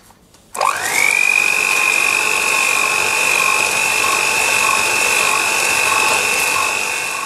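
Electric hand mixer switched on about half a second in, its motor spinning up to a steady high whine as the twin beaters whip egg yolks with sugar and milk in a plastic bowl.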